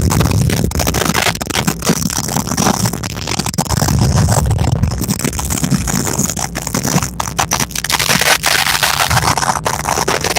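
Mirage volcano attraction erupting: a loud, continuous low rumble with crackling.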